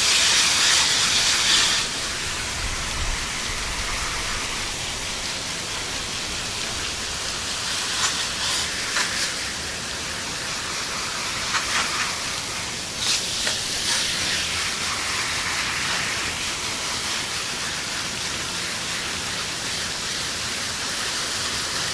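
A spray of water steadily hissing as it rinses a humidifier water curtain, washing off mold and mildew cleaner and calcium deposits; it is louder for the first two seconds.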